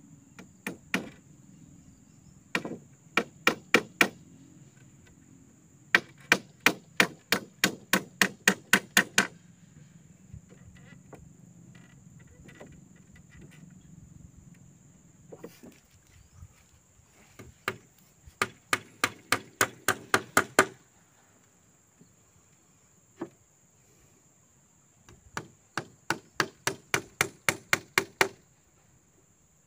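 A hand tool striking wood in quick runs of up to about a dozen blows, at three to four a second, with pauses and a few single blows in between. Woodwork is going on during the building of a log raft. A steady high insect drone runs behind.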